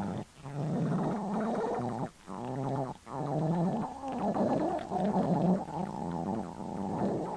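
A hungry, empty stomach growling: a long run of gurgling, warbling rumbles that waver up and down in pitch, with brief breaks about a quarter second in, at about two seconds and at about three seconds.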